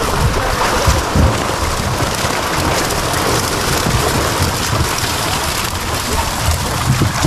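Dense, steady splashing of a packed mass of milkfish thrashing at the water's surface in a harvest net, like heavy rain, with scattered heavier splashes.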